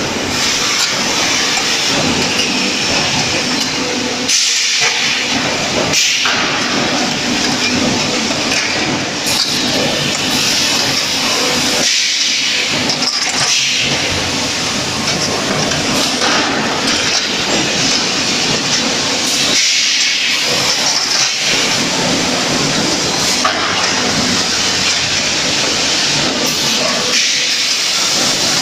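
Wheel rim flash butt welding line running: a loud, steady din of factory machinery with a hiss on top, easing briefly every several seconds.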